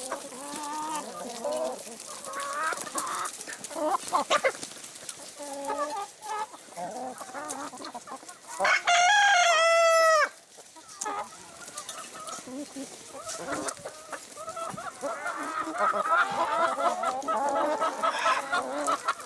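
A flock of chickens, Brahmas among them, clucking in short calls as they crowd in to be hand-fed. About nine seconds in, a rooster crows once, loudly, for under two seconds.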